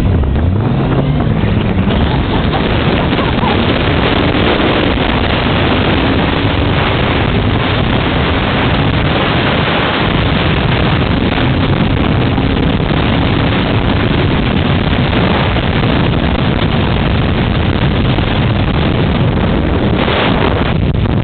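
Motorcycle engine running while under way, its note rising and falling a little, buried in heavy wind noise on the microphone.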